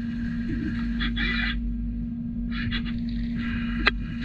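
Brother Speedio U500Xd2-5AX machining center drilling aluminium with a 16 mm drill at 2,600 rpm under coolant. A steady machine hum runs under a higher cutting whine that starts and stops in short spells, and there is a sharp tick near the end.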